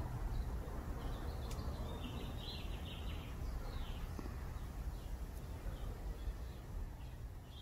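Small birds chirping in short calls, most of them between about one and three and a half seconds in, over a steady low rumble.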